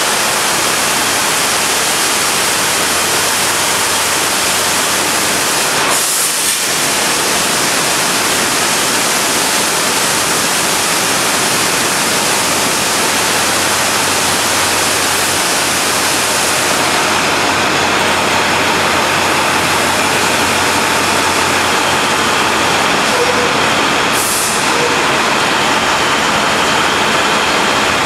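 High-pressure water jets of an automated touchless drive-through truck wash spraying a truck: a loud, steady hiss of water with a low hum underneath, broken briefly twice.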